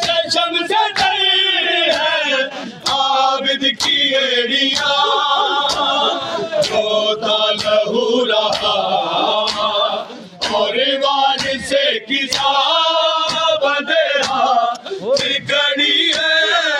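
Men chanting a noha (Shia lament) in chorus, one lead voice with the group answering, over sharp rhythmic slaps of matam, hands beating on chests, about one or two a second.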